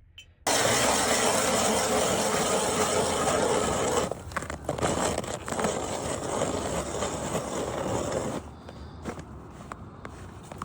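Ice auger with freshly sharpened Mora-style blades boring through ice, a loud grinding rasp of blades shaving ice that starts suddenly about half a second in, changes character about halfway through and stops near the end.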